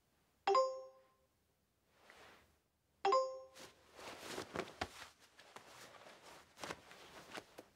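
A message notification chime sounds twice, about two and a half seconds apart, each a bright ding that rings briefly: an incoming message alert. Soft rustling and small clicks follow.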